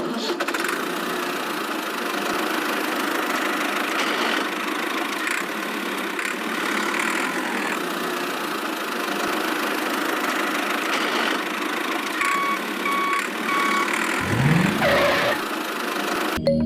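A small motor running steadily, with three short beeps about twelve seconds in.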